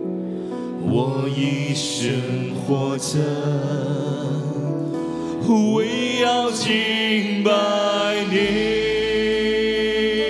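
A man sings a slow Chinese worship song into a microphone over soft instrumental accompaniment, holding a long note in the second half.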